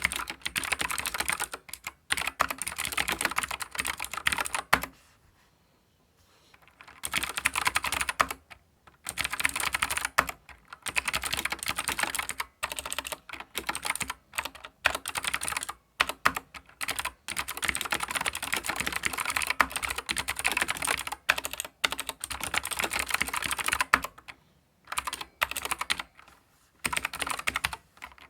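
Keychron K4 v2 mechanical keyboard with clicky blue switches being typed on, in runs of fast typing broken by short pauses, the longest near the first quarter.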